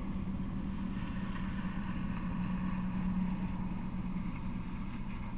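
A steady low engine-like hum with a faint hiss over it, swelling a little about three seconds in.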